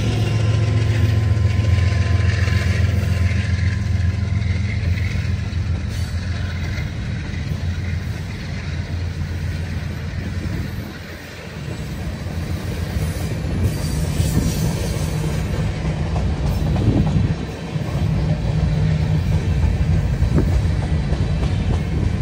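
CN freight train passing close by: a locomotive's low diesel drone drops away in the first second, then the freight cars roll past with a steady rumble and clatter of wheels on the rails. A brief high wheel squeal comes a little past the middle.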